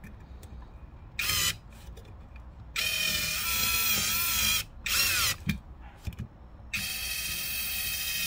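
Cordless drill fitted with a universal grip socket, driving a screw-in hook into a wooden board. The motor whines in four bursts: a short one about a second in, a long one from about three seconds, a brief one near five seconds with its pitch sliding, and a long one from about seven seconds.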